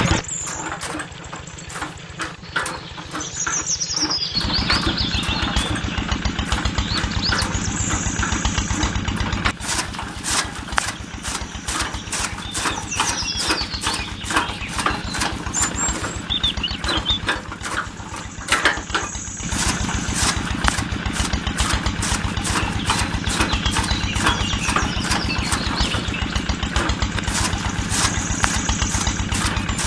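A small engine running with a rapid, even firing rhythm. The sound shifts abruptly a few times, with occasional short high squeaks over it.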